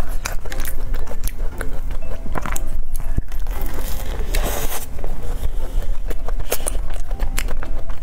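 Close-miked eating: a cream puff with a crumbly crackled crust being bitten and chewed, a steady run of small crackles and mouth clicks, with a denser crunch about four and a half seconds in as she takes a bite.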